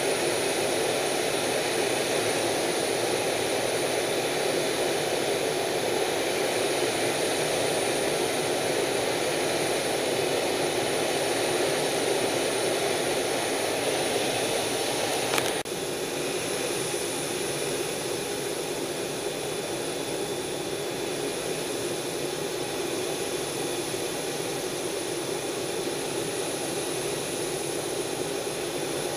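Steady jet engine and airflow noise heard inside a fighter jet's cockpit in flight, with a faint high whine over it. A short click about halfway through, after which the noise is a little quieter.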